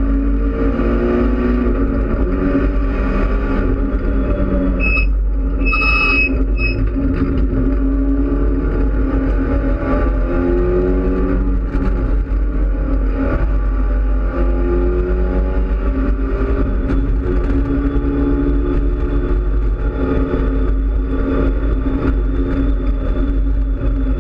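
Mitsubishi Lancer Evolution X race car's turbocharged four-cylinder engine, heard from inside the cockpit at racing speed, its pitch climbing repeatedly through the gears and dropping at each shift or lift, over a heavy drone of wind and road noise. A brief high squeal sounds about five to six seconds in.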